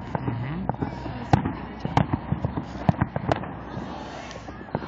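Fireworks going off all around: irregular sharp bangs and crackles, several a second, the loudest about a second and a half in.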